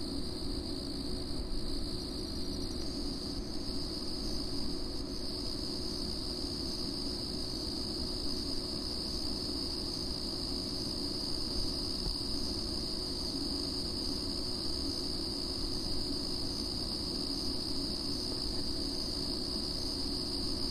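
Steady chorus of crickets, an unbroken high-pitched trill, over a low, even background rumble.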